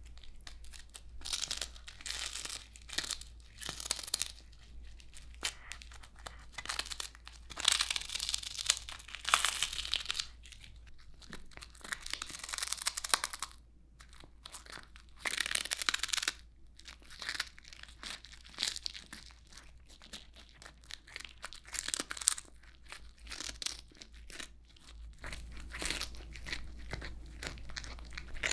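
A Norwegian Forest cat crunching and chewing a crisp dried smelt: irregular bursts of crackling bites with short pauses between them.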